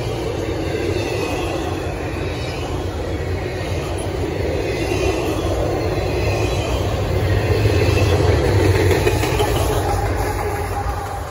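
Freight train's empty double-stack well cars rolling past at speed: a steady rumble and clatter of wheels on rail. It grows louder about eight seconds in as a diesel locomotive comes by, then eases off.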